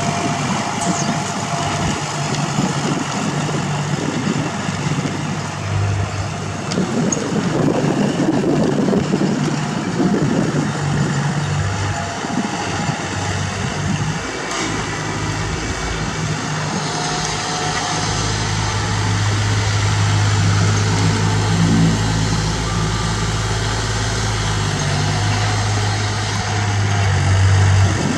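Kubota L4018 compact tractor's diesel engine running steadily under load while its rear rotary tiller works dry field soil and stubble. The engine note deepens and grows stronger partway through.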